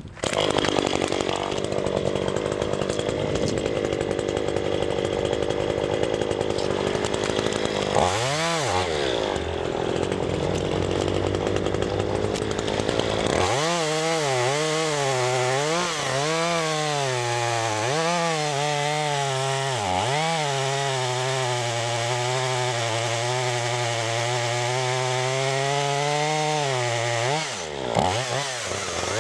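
Chainsaw ripping lengthwise through a forked oak log, the engine held under load. Its note wavers and sags several times as the chain bites, with a brief drop and recovery about eight seconds in and again near the end.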